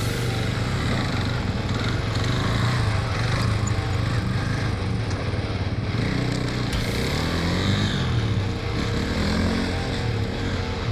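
Husqvarna FE 450 enduro motorcycle's single-cylinder four-stroke engine running as the bike is ridden over dirt, with the revs rising and falling several times in the second half.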